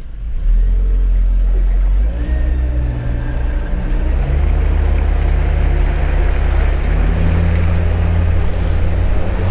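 Small fishing boat's engine running under way, its pitch stepping up several times as the throttle is opened and the boat gathers speed, with rushing wind and water noise building.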